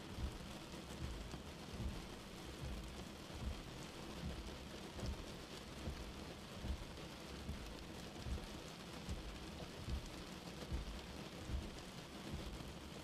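Steady rain falling on a car windscreen, with slow windscreen wipers giving a soft low thump a little more than once a second as they sweep.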